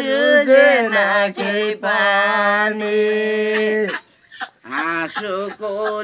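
Unaccompanied singing voice drawing out long, steadily held notes, breaking off briefly about four seconds in, then a few shorter sung phrases.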